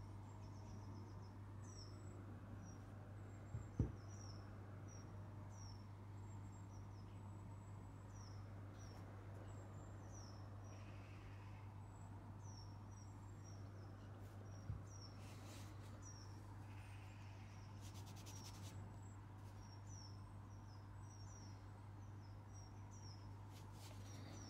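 Small bird chirping again and again in short high chirps over a steady low hum. A sharp knock about four seconds in, and a softer one midway.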